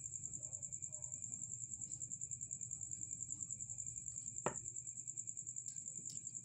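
Cricket trilling steadily in a fast, even pulse, with one sharp click a little past two-thirds of the way through.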